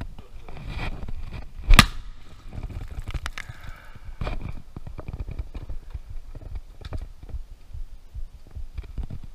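A single sharp gunshot about two seconds in, the finishing shot on a hooked alligator, over low rumbling handling noise.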